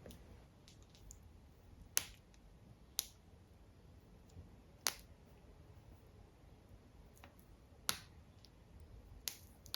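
Hair beads on braids clicking against each other as they are handled and fastened with tiny elastics: about five sharp, faint clicks at irregular intervals.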